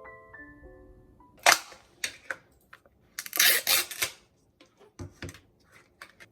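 A few music notes die away, then a run of sharp clicks and knocks, with a dense clatter of them about three seconds in.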